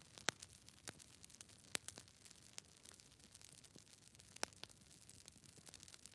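Faint, irregular sharp clicks and ticks, a few each second, over a low hiss.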